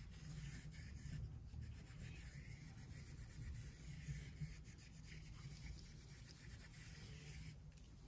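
Faint rubbing of a Victorinox florist's knife, its flat back side pressed flat on a 5000-grit whetstone and slid gently back and forth to remove the burr from the edge.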